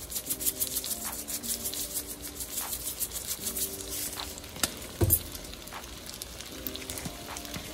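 Garlic noodles lightly crackling and pattering in a frying pan while being seasoned, with one sharp knock about five seconds in.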